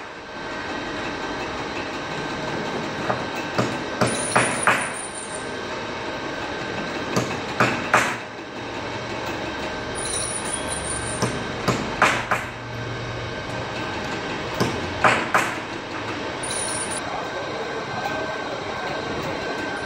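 Steady machinery noise with clusters of sharp metallic clanks about every four seconds and brief high-pitched squeals every few seconds.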